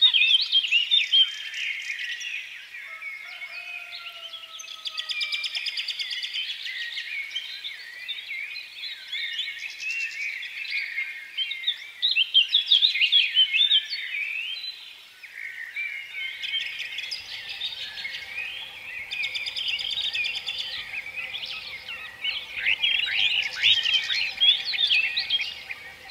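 A dense chorus of many small birds chirping and twittering without a break, with a faint steady hum coming in past the middle.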